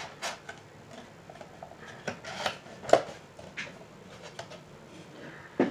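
Hands handling a toy's cardboard box: scattered rustles, taps and clicks, the loudest about three seconds in.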